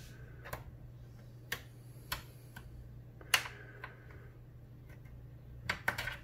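Sharp plastic clicks and snaps from plastic pry tools working along the seam of an MSI GE75 laptop's bottom cover as its retaining clips pop loose, spaced apart with the loudest about three seconds in and a quick run of clicks near the end. A faint low hum lies underneath.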